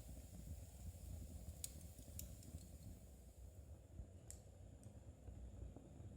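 Faint, sparse light clicks of metal knitting needles tapping together as stitches are worked, about five scattered across a few seconds, over a low steady rumble.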